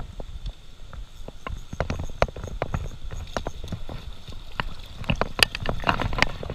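Spinning rod and reel handled while reeling in a hooked trout: irregular clicks and knocks over a low rumble, in a denser flurry about five seconds in.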